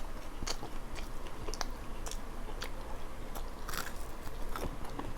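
A person chewing and biting into fried chicken wings, with irregular small crunches and clicks.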